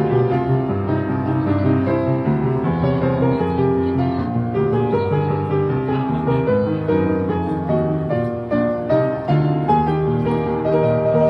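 Piano playing: chords in the middle register over a moving bass line, with notes held and ringing into one another.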